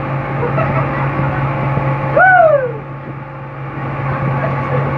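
Boat engine running steadily under way. About two seconds in, one loud call rises briefly and then falls in pitch.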